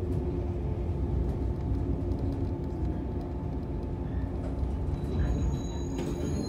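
Electric train heard from inside the passenger car as it slows into a station: a steady low running rumble with a held hum, and thin high-pitched squeals, typical of the brakes, coming in near the end as it comes to a stop.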